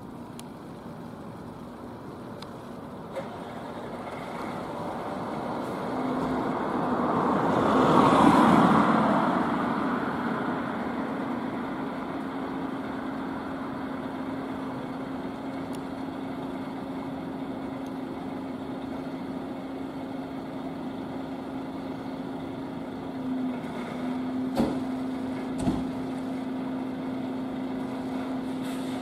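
Volvo FL fire engine's diesel engine idling, a steady hum, with a louder rush of noise that swells and fades about eight seconds in. Near the end, two sharp bangs about a second apart as the cab doors are shut.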